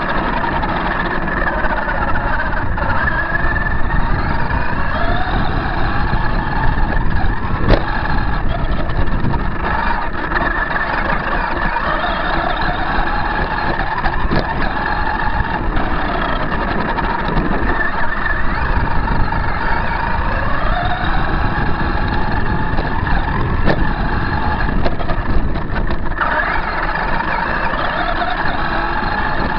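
Losi High Roller radio-controlled truck's motor, picked up by a camera riding on its roof, whining up and down in pitch again and again as the truck speeds up and slows while driving, over a steady noisy rumble, with a few sharp knocks from bumps.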